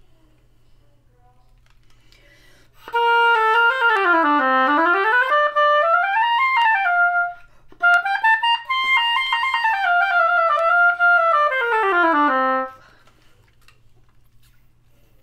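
Oboe played on a handmade cane reed that has just been clipped at the tip, testing its response. After a quiet start it plays two phrases of notes: the first runs down, climbs high and drops back; after a short break the second starts high and winds down to a low note. The player then feels the reed leaking at its sides.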